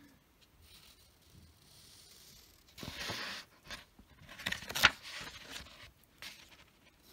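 Pen and hand scraping and rustling on a paper worksheet: a short scraping rush about three seconds in, then a quick run of sharp scratches just before five seconds.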